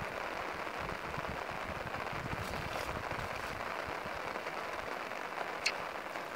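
Steady hiss of rain, with low irregular thuds beneath it and one sharp click near the end.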